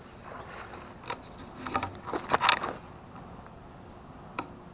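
A quick run of rustles and scrapes, loudest about two and a half seconds in, like leafy bankside bushes brushing against the camera as it moves, then a single click near the end.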